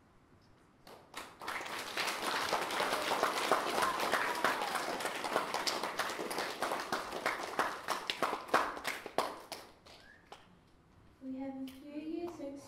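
Audience of schoolchildren applauding, starting about a second in and dying away at about ten seconds. Near the end a voice starts speaking.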